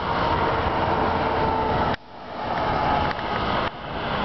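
Steady rushing noise of highway traffic with a tractor-trailer passing close by. The noise drops abruptly about two seconds in and again near the end, building back up each time.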